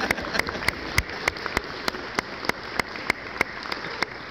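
Audience applauding, with one clapper close by clapping steadily about three times a second over the general clapping of the crowd.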